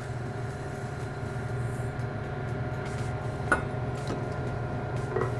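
Steady electric hum of an induction cooktop heating a saucepan, with a few fixed tones over a low drone. A wooden spoon knocks once against the stainless steel pan about three and a half seconds in, with a couple of fainter taps after.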